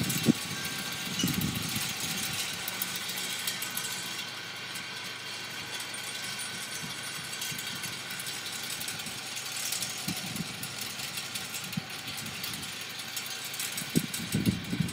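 Wind gusting over the microphone, with low buffeting rumbles at the start and again near the end and a steady hiss between.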